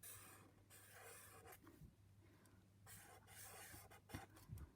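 Faint scratching of a pen writing letters: several short strokes in a row.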